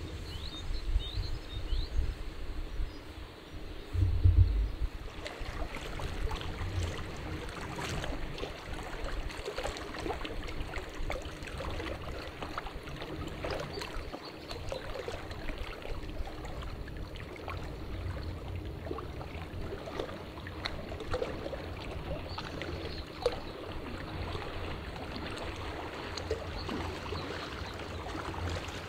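Small waves lapping and splashing irregularly against the stones of a lakeshore. In the first few seconds, low rumbling gusts buffet the microphone.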